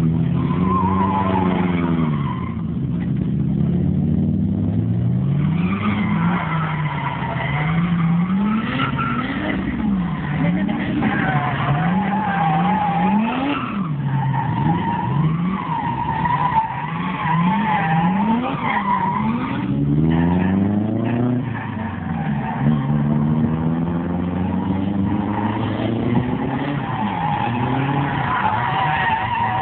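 A drift car's engine revving up and down hard and repeatedly as the car slides through a run, with the tyres squealing in long, wavering screeches at several points.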